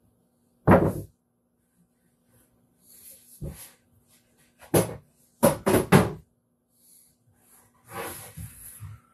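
Wood knocking and clattering as boards and tools are handled on a workbench: a loud knock about a second in, a few more in the middle including three in quick succession, and a longer scraping clatter near the end, over a faint steady hum.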